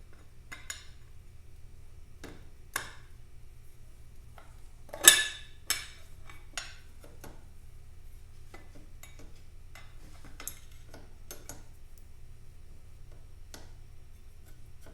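Metal parts and hand tools clinking and knocking as they are handled: scattered sharp clicks, with one louder clank about five seconds in.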